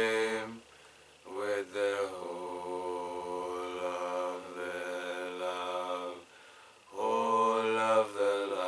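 A man chanting a prayer in long, drawn-out sung tones. One note is held steadily for about five seconds, with short pauses before and after it.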